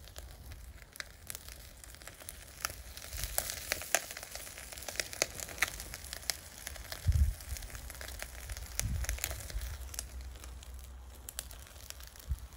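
Miso-marinated redfish sizzling over charcoal in a shichirin grill, with irregular sharp crackles and pops from the hot coals. A low rumble swells briefly about seven seconds in and again around nine seconds.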